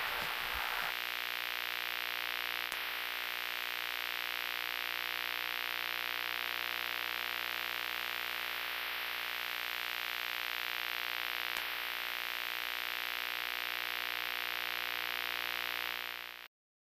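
A steady electronic static hiss with a faint hollow hum running through it, with two faint clicks; it cuts off abruptly near the end.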